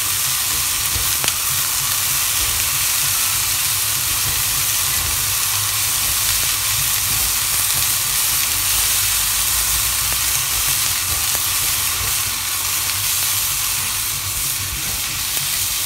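Chopped green beans sizzling steadily in hot oil in an aluminium wok over a high gas flame while being stirred with a wooden spatula, with a low steady rumble underneath.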